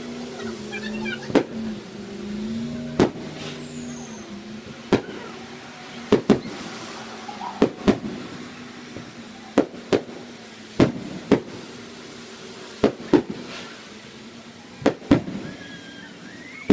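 Aerial fireworks shells bursting, a sharp bang every second or two, several coming in quick pairs.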